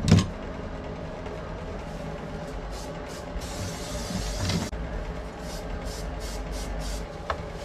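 Aerosol spray adhesive hissing from the can in one burst of about a second near the middle, with a few shorter squirts around it, over a steady low hum. There is a thump right at the start.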